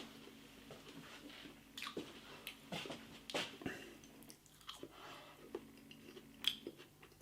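A person quietly chewing a potato wedge, with faint irregular mouth clicks, over a faint steady low hum.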